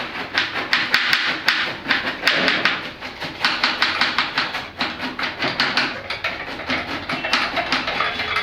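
Knife chopping cabbage on a cutting board: a quick run of sharp knocks, about four a second, that pauses briefly near the middle.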